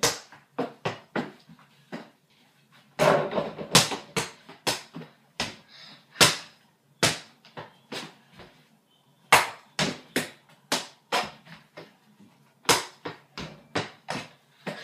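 Mini basketball bouncing on the floor and hitting the mini hoop, a string of short thuds in irregular clusters with brief pauses between them.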